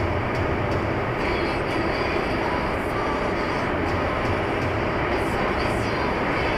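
Steady rumble of tyres and engine heard inside a moving vehicle on the road.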